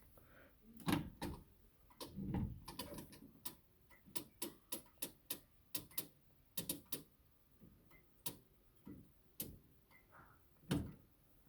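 Winding crank turning in a 1981 Howard Miller triple-chime grandfather clock, its ratchet clicking in uneven runs, with a few heavier knocks near the start and near the end.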